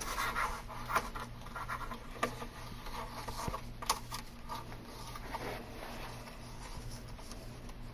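Faint scratching and rustling of peel-and-stick edge band material being pulled off and handled along the panel edge, with a few light clicks, over a low steady hum.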